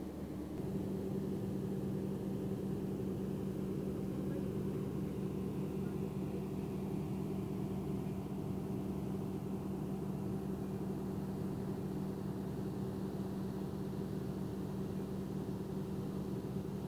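An engine running steadily at constant speed, a low, even hum that gets slightly louder about a second in.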